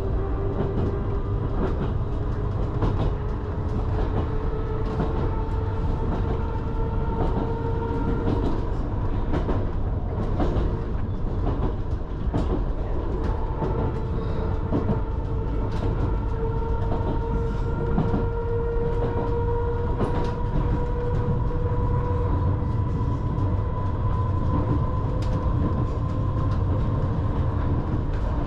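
Island Line Class 484 electric train running along the track, heard from on board: a steady rumble with a motor whine slowly rising in pitch, and scattered clicks from the wheels over the rails.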